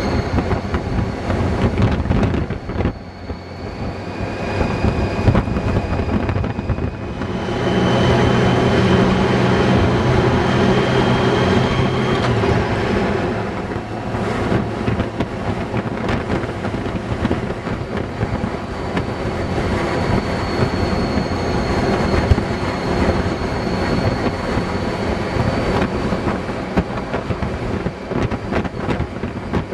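Honda Gold Wing motorcycle at road speed: a steady engine drone mixed with wind and road noise. It dips briefly about three seconds in.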